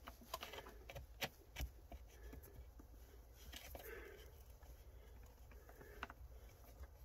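Faint, scattered small clicks and rustling of wires and a ring terminal being handled and pushed onto a car battery terminal.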